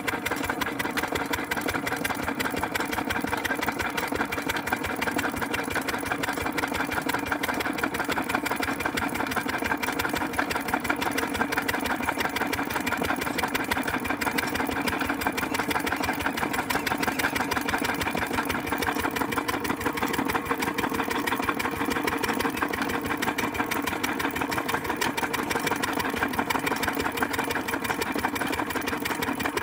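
Single-cylinder stationary diesel engine with twin flywheels running steadily with a rapid, even beat, its exhaust blowing into a large balloon.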